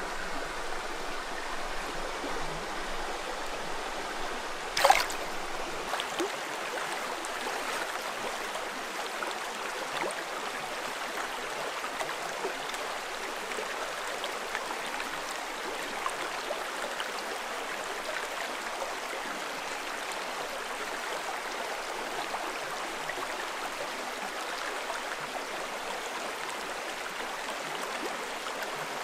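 Small freestone stream rushing steadily over a shallow riffle, with one brief sharp sound about five seconds in.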